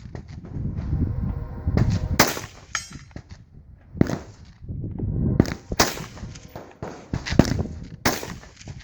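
AR-15 rifle firing single shots, about four loud sharp reports nearly two seconds apart, with fainter cracks between them.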